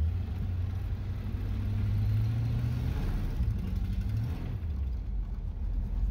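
Junkyard 5.0 small-block Ford V8 in a Ranchero, heard from inside the cabin while driving. Its note climbs for a few seconds, drops away, rises briefly again and falls off about four and a half seconds in. This is the engine that runs rough and stumbles as soon as it is given throttle.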